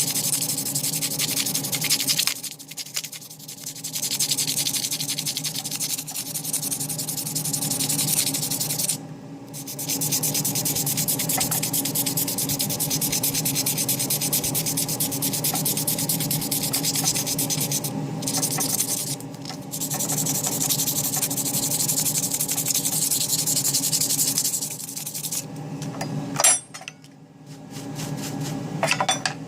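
Small CNC router milling a copper-clad circuit board: the spindle hums steadily under a continuous scraping hiss of the cutter, which drops away briefly several times as the tool lifts or moves between cuts.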